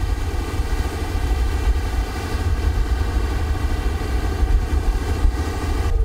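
Small fishing boat's engine running steadily: a low rumble with faint steady tones above it.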